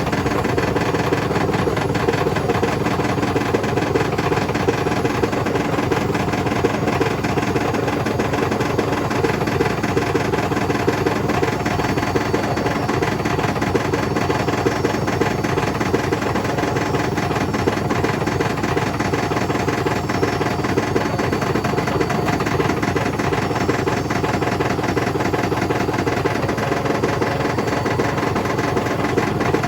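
Hotpoint BHWMXL145 washing machine spinning with a loose, noisy drum: a loud, steady, fast rattling and rumbling, the sign of a drum spider with two snapped arms.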